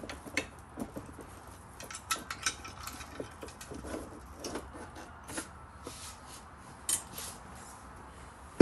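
Scattered light clicks, knocks and rubbing as a saddle seat attachment is handled and fitted onto a Segway X2's frame, with a sharper knock at the very end.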